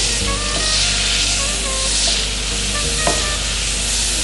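Garlic and ginger sizzling in hot oil with soy sauce and vinegar in a nonstick frying pan while a spatula stirs, with one light knock about three seconds in. Background music plays under it.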